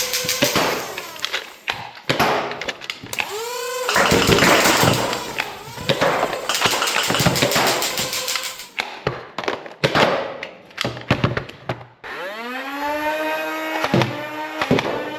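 Toy foam-dart blasters being worked and fired: a string of sharp clicks and snaps, and twice a small electric motor whines up in pitch, once about three seconds in and again about twelve seconds in, where it climbs and then holds steady like a flywheel blaster spinning up.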